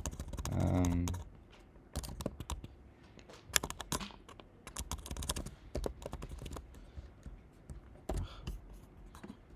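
Typing on a computer keyboard: scattered, irregular key clicks and taps. These start about two seconds in, after a brief pitched hum of a voice in the first second.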